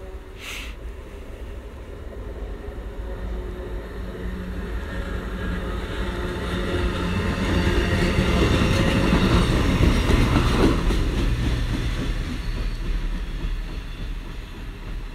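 A train approaching and passing close by, its running noise building to a peak about two-thirds of the way through, then fading as it goes away.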